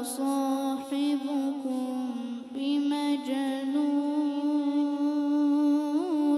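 A boy's voice reciting the Quran in melodic tajweed style, holding long drawn-out notes, with a quick warbling ornament near the end.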